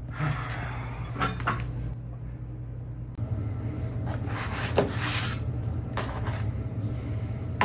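Household handling noises: several short knocks, rustles and a longer scrape, like a cupboard or drawer and objects being moved, over a low steady hum.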